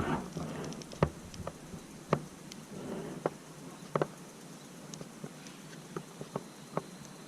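Climbing rope and gear being handled close to a helmet-mounted microphone: irregular light clicks and taps with brief rustling.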